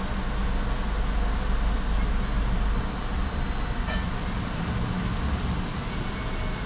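Steady low rumble of a car idling while stationary, heard from inside the cabin.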